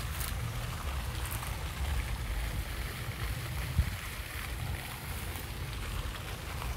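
Wind buffeting the microphone as an uneven low rumble, over a faint steady hiss, with one brief thump just before four seconds in.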